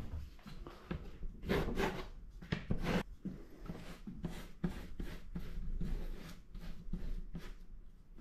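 Wide flat brush scrubbing acrylic paint onto paper over a board: a run of short, rough brush strokes, a few a second, loudest in the first few seconds.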